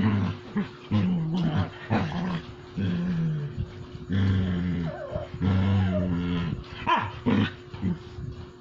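Dogs growling in play: a run of low, drawn-out growls, each lasting half a second to a second with short breaks between, as an adult dog and a puppy play-fight.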